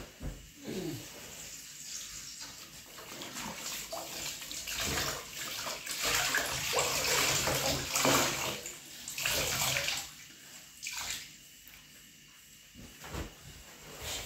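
Water running and splashing, loudest in the middle and dropping off about ten seconds in, with a few short splashes after.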